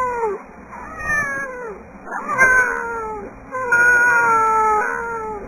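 Domestic cat meowing: about four meows that fall in pitch, the last one long and drawn out.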